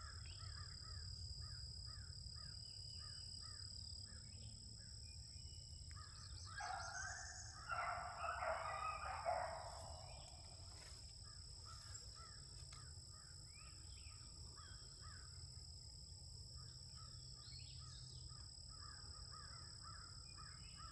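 A pack of beagles baying and chopping faintly while running a rabbit, in many short repeated calls, with a louder stretch of baying about seven to nine seconds in.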